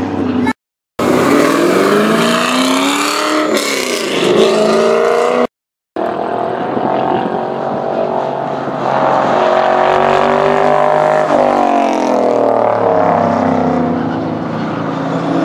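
Race cars, among them Chevrolet C5 Corvettes with their V8 engines, passing one after another at speed. The engine notes climb with the revs and drop in pitch as each car goes by. The audio cuts out briefly twice, just under a second in and again about five and a half seconds in.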